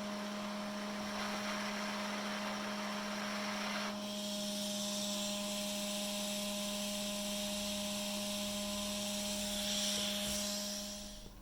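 A small electric fan-driven machine running with a steady hum and rushing air. About four seconds in the rush shifts higher and brighter, and it cuts off near the end.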